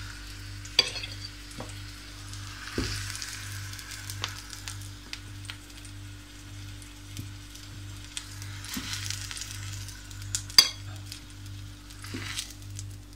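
Zucchini slices sizzling as they fry in a pan, the hiss swelling and easing, with sharp clinks of a metal fork against the pan and plate. The loudest clink comes about ten and a half seconds in. A steady low hum runs underneath.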